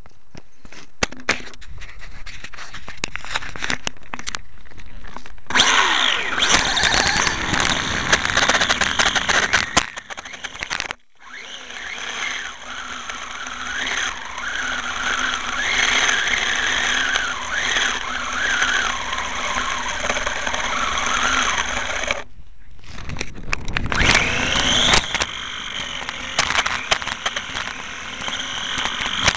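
Electric motor and drivetrain of a Venom GPV-1 radio-controlled motorcycle, picked up by a camera riding on the bike, with tyre and rattle noise from the tarmac. The drive rises in pitch as it speeds up, about six seconds in and again near the end, and breaks off briefly twice when the throttle is let off.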